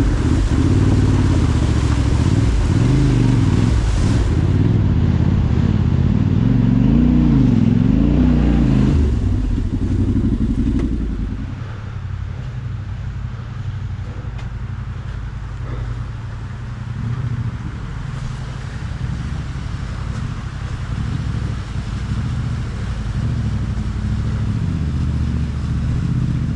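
Motorcycle engine revving, its pitch rising and falling for about ten seconds while the bike is ridden through a flooded water crossing, then running lower and steadier.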